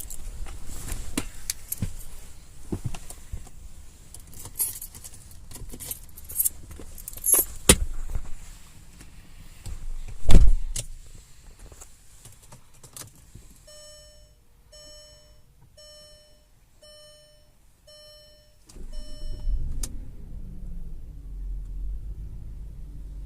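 Irregular clicks and knocks around a 2001 Audi A8L, with one loud thump about ten seconds in. A warning chime then sounds six times, about once a second. A low steady rumble starts near the end, like the engine running.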